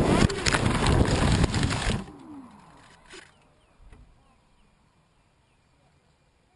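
Rushing wind and motor noise on the FPV Raptor model plane's onboard camera. It cuts off about two seconds in with a short falling whine as the motor winds down, leaving quiet with a few faint high chirps.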